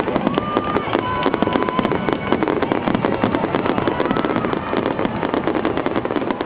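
Fireworks finale barrage: a dense, unbroken run of shell bursts and crackling pops, many bangs a second with no let-up.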